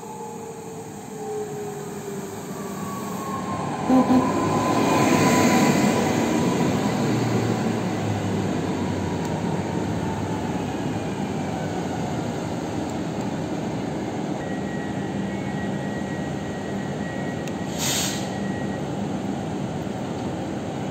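EN79 electric multiple unit running in along the platform, its wheels rumbling on the rails, rising to a peak with two short loud sounds about four seconds in. Its motor whine slides slowly down in pitch as it slows. A brief burst of air hiss comes near the end.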